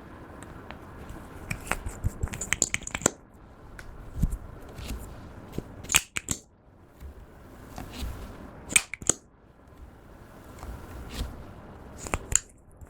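Clear slime being worked by hand: squishing and folding, with clusters of sharp clicks and pops several times as air pockets burst in the slime.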